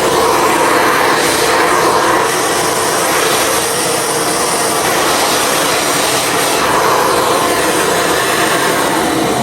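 A Von vacuum cleaner running, a loud, steady rush of motor and airflow noise.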